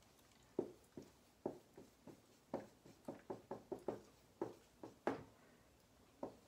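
Faint handwriting: a pen or marker making a run of short, irregular taps and strokes on a writing surface, densest in the middle and pausing near the end.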